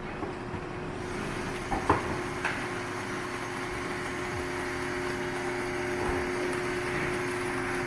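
Bramidan B6030 vertical baler's hydraulic pump motor running steadily with a constant hum as the machine ejects a finished bale, with a couple of sharp knocks about two seconds in.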